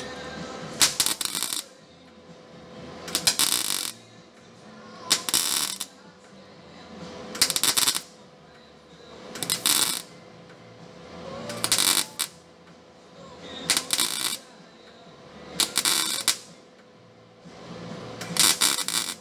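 MIG welder laying short spot welds, one at a time, into a sheet-metal cab corner panel: nine brief bursts of arc noise, each under a second, about every two seconds.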